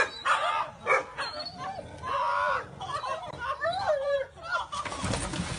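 Dog yelping and whining: a string of short, high cries that rise and fall, with one longer held cry about two seconds in.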